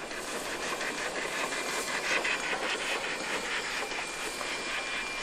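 Narrow-gauge steam locomotive NM25 working past at speed, its exhaust chuffing at about five beats a second over a steady hiss of steam.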